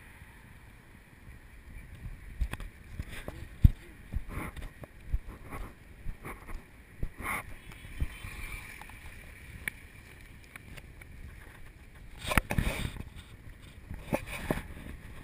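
Handling noise on a GoPro Hero2 being carried on a walk: a low rumble with irregular knocks and rubs, wind on the microphone. A sharp knock about three and a half seconds in, and a cluster of louder knocks about twelve seconds in.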